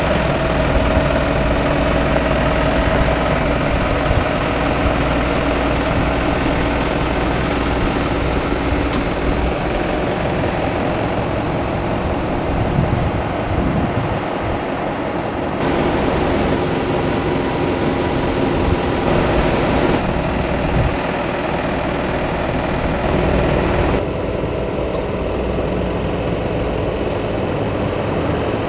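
A steady engine hum with a low drone and a couple of held tones, changing abruptly a few times.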